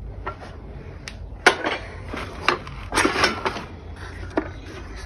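Handling clatter of old wooden hand-crank coffee grinders: several sharp knocks of wood and metal, the loudest about a second and a half in, and a short rustling scrape around the three-second mark as they are moved about and lifted from a plastic bag.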